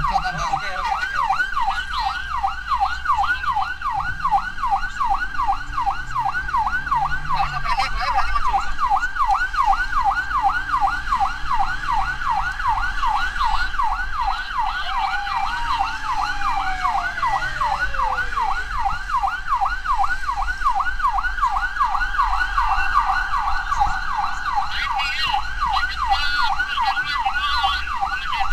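Emergency vehicle siren in a fast yelp, its pitch sweeping up and down about three times a second without a break. About halfway through, a second, lower tone slides steadily down in pitch over about three seconds.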